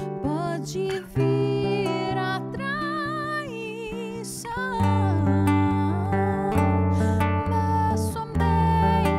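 Nylon-string classical guitar playing a slow instrumental passage, with held melody notes that waver, and a low bass line joining about five seconds in.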